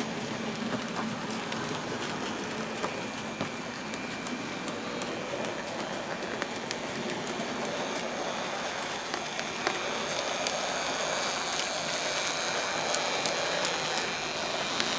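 OO gauge model 0-6-0 tank locomotive running along the track with a wagon: a steady electric-motor whine over a rattle of many small wheel clicks on the rails, getting a little louder near the end as it comes close.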